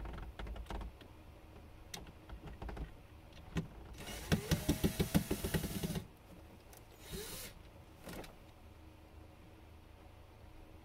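A small electric power driver runs for about two seconds, starting about four seconds in, backing out a screw, with a fast even pulsing. Short clicks and knocks of handling come before and after it.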